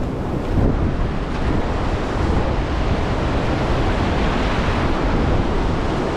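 Ocean surf rushing and washing around a small boat in the shallows, a steady loud wash, with wind buffeting the microphone.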